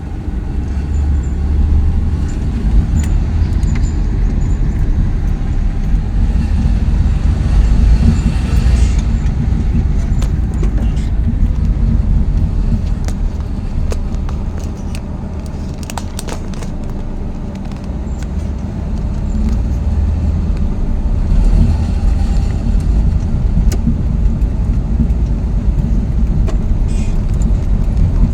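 Road vehicle running: a steady low rumble of engine and road noise that swells and eases slowly, with a few light clicks.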